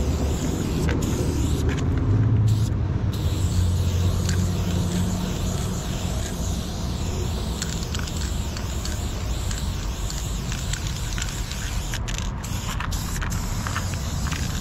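Aerosol spray paint can hissing in long bursts with a few short breaks, over a steady low rumble.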